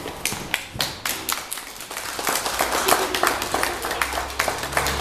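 Applause: a few scattered claps that thicken into steady clapping from many hands about two seconds in.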